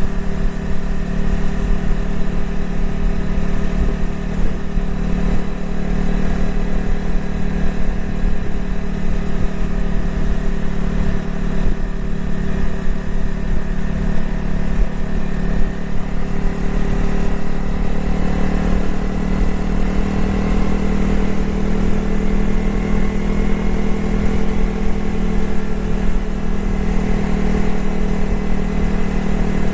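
Honda CRF250L's single-cylinder engine running steadily as the motorcycle rides along, its note rising a little about two-thirds of the way through.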